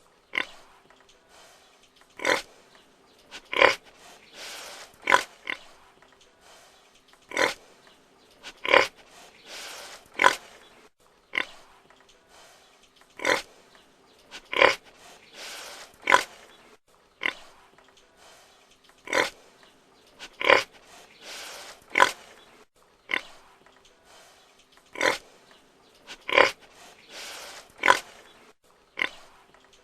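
Pig grunting, with short, sharp, loud calls every one to two seconds and softer, longer breathy grunts between some of them.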